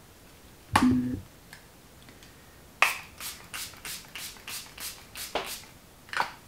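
Pump-action setting spray misting onto a face: about nine quick short sprays in a row, roughly three a second, after a click about a second in, with one more spray near the end.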